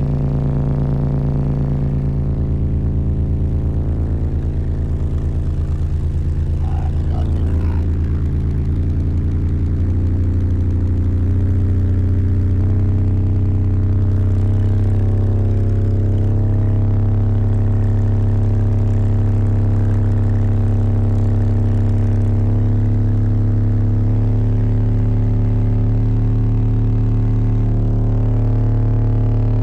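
Car audio system with seven subwoofers (a Skar 18-inch, two Toro 15s and four Toro 12s) heard from inside the car, playing loud, steady low bass test tones. Each tone is held for several seconds, and the tones step up in pitch a few times as the owner works upward from his lowest frequency.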